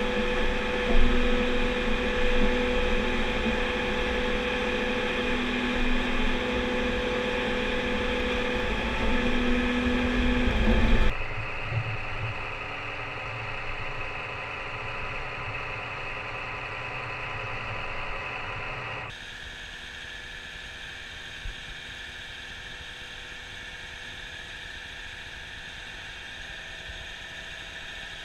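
Diesel engine and hydraulics of a Mastenbroek 35/20 tracked V-plow running steadily under load while it plows in drainage pipe, with a whine that comes and goes in the first part. The sound drops abruptly in level twice, about a third of the way in and again about two-thirds of the way through.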